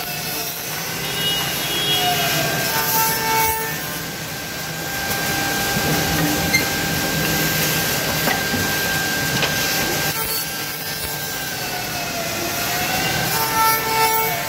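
CNC double-head tenoning machine's milling spindles running with a steady high whine while cutting tenons into a wooden workpiece, with louder bursts of cutting about three seconds in and again near the end.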